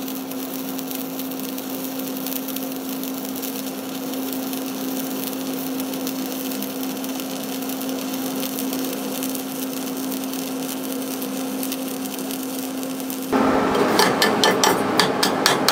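Stick welding with a 3.2 mm 6013 electrode at 110 amps DC: a steady arc crackle and hiss, with a constant low hum underneath. About thirteen seconds in the arc stops and a hand wire brush scrubs the fresh weld bead in quick, repeated strokes.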